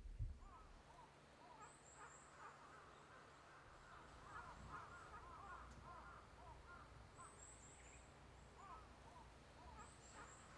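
Faint forest ambience of birds calling: many short, overlapping calls throughout, and three brief bursts of high, thin, falling notes, about 2 s in, about 7.5 s in and near the end. A soft low thump comes just at the start.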